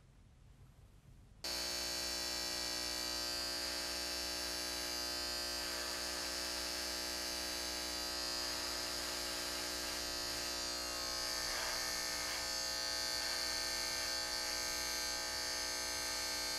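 Corded electric hair clipper buzzing steadily as it trims stubble from a jaw, starting abruptly about a second and a half in.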